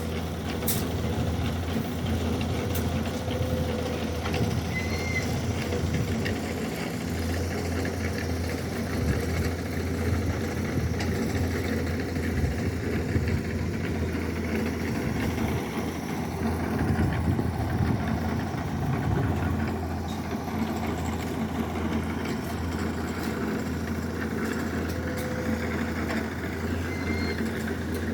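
Heavy diesel engine running steadily at low revs, a constant low hum.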